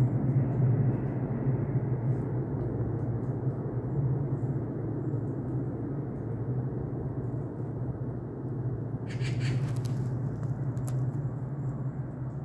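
Steady low rumbling noise of an outdoor field recording, wavering in loudness, with a brief crackle of sharp clicks about nine seconds in.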